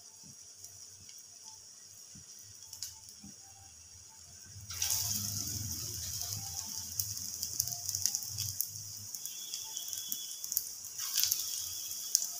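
Hot mustard oil sizzling in a frying pan as balls of raw potato pakora batter are dropped in. The sizzle is faint at first, jumps much louder about five seconds in as another pakora goes into the oil, with a steady crackle after, and swells again near the end as a third is added.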